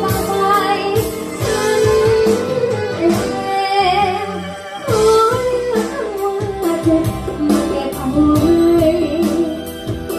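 Music: a woman singing a melody over plucked guitar and a steady beat.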